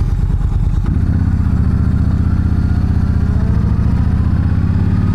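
Yamaha V Star 1300's V-twin engine running under way, heard from the rider's seat. The engine note grows stronger about a second in and then holds steady.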